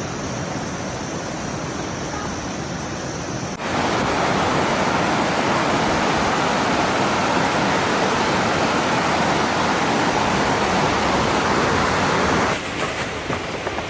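Valley stream rushing steadily. It gets abruptly louder about four seconds in and drops back just as suddenly near the end.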